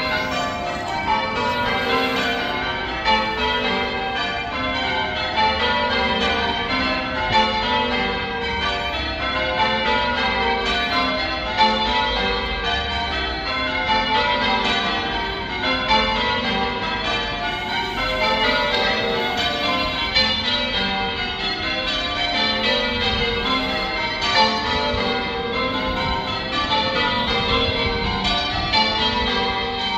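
Church bells rung in changes: a continuous, even run of overlapping bell strikes, the bells of the ring sounding one after another in quick succession.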